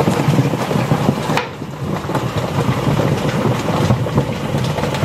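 Live catfish thrashing in salt inside a plastic drum covered with a wooden board, kept on so they cannot jump out: a dense, irregular patter of splashing and knocking over a low rumble.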